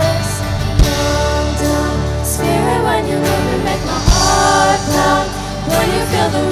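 Worship song music with voices singing held, gliding notes over sustained low chords, and two sharp drum hits about a second and four seconds in.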